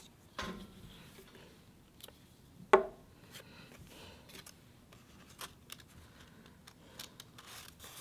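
Glue stick rubbed over construction paper, with soft paper rustling and scattered light clicks as the paper is handled. A sharp tap comes about three seconds in, the loudest sound.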